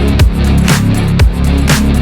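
Loud electronic background music with heavy bass and a steady beat, about two hits a second.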